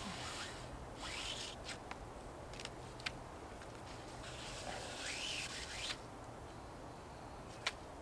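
Rubbing and rustling, in two spells: about a second in, and again from about four to six seconds. A few sharp clicks stand out, the loudest near three seconds and just before the end.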